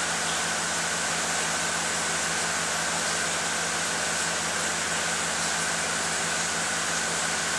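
A fan running steadily: an even whoosh with a faint high whine and a low hum.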